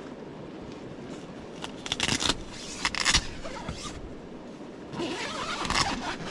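Tent door zip being worked from outside on a Robens Pioneer 2EX tent: a few short rasping pulls about two and three seconds in, then a longer run near the end, with the nylon door fabric rustling.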